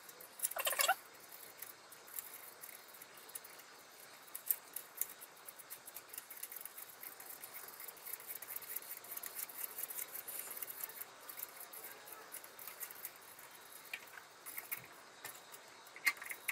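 Wires and cables being handled and pushed into place inside an open espresso machine: light rustling, scratching and small plastic clicks, busiest in the middle, with a short squeak about half a second in.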